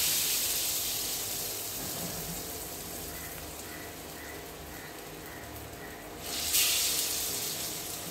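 Batter-dipped bread slices deep-frying in hot oil: a loud sizzle as the first slice goes in that slowly settles, then a fresh burst of sizzling about six and a half seconds in as a second slice is dropped into the oil.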